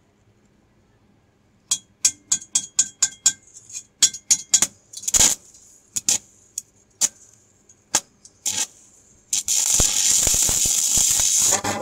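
Stick-welding arc from a mini inverter arc welder set to its full 200 amps. First a string of short crackling strikes as the electrode touches the steel tube. Then, about nine seconds in, the arc holds for about two seconds with a loud steady crackling hiss before cutting off abruptly; at this current it burns a hole through the thin tube.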